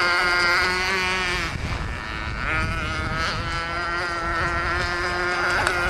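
Motorboat engine running at high revs, a steady pitched drone that wavers slightly. It drops back briefly about two seconds in before rising again, over a low rumble.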